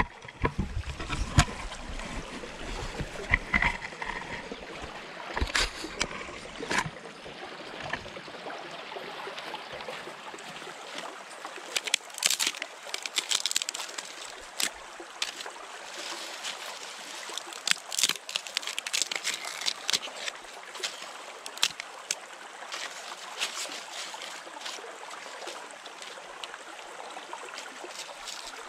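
Shallow stream running and trickling over stones, with scattered splashes and knocks, thickest in the middle of the stretch, and a few low thumps in the first several seconds.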